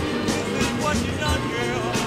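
Music with a melody over repeated drum hits.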